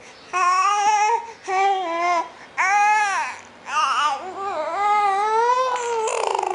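An 8-month-old baby babbling and squealing: about four high-pitched vocal sounds with short pauses between them, one arching up and down, the last long and slowly rising in pitch.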